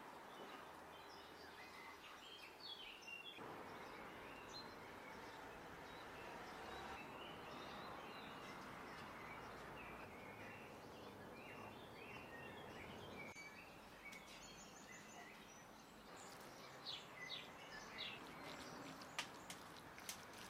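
Faint outdoor ambience of small birds chirping over a soft steady hiss. From about three seconds before the end, short sharp clicks and slaps of hands kneading chopped raw lamb in a wooden bowl.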